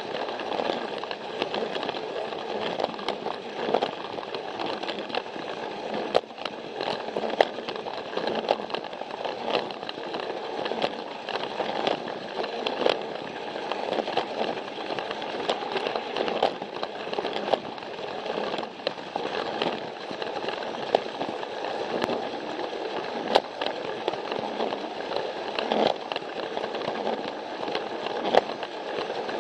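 Plarail battery-powered toy train running along plastic track: a steady motor-and-gear whir and rattle, with irregular clicks as the wheels pass over track joints.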